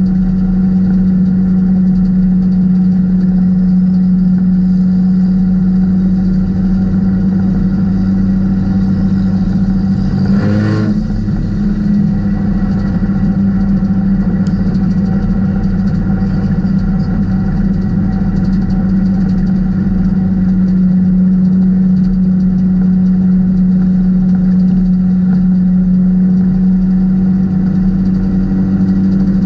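Four-cylinder Econo4 race car engine heard from inside its stripped cockpit, running at a steady speed with an even drone. About ten seconds in the engine note briefly shifts and dips before settling back.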